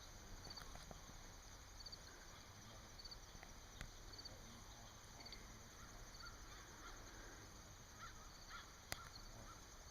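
Faint outdoor farm ambience: a small high chirp repeating about once every two-thirds of a second, with a few faint animal calls near the end and a couple of soft clicks.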